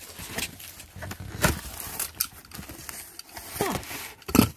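Cardboard box being cut and pulled open: packing tape and flaps tearing and rustling, with plastic wrap crinkling. There are a few sharp cracks, a strong one about a second and a half in.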